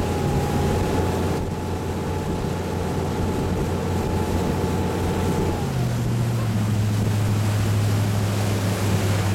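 A wakeboard tow boat's engine running steadily over the churn of its wake, with wind on the microphone. About six seconds in, the engine note changes and settles into a lower, steady tone.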